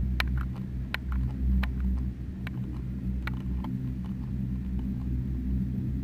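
Steady low hum and rumble of a gondola lift's terminal machinery, with a few sharp clicks scattered through the first four seconds.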